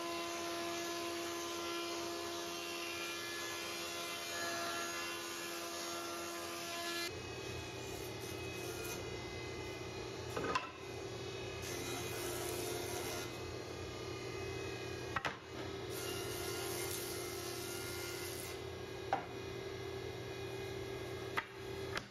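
Woodworking planers running as old floorboards are fed through: first a thickness planer with a steady hum, then after a sudden change a jointer running with the same kind of steady machine noise. Four sharp knocks come in the second half.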